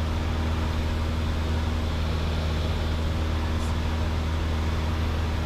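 Piper PA-28 Archer's four-cylinder piston engine and propeller running steadily in flight, heard inside the cabin as a constant low drone.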